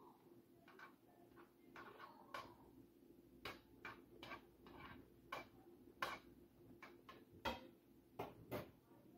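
Butter melting in a hot skillet, crackling with scattered sharp pops at irregular intervals. A faint steady hum lies underneath.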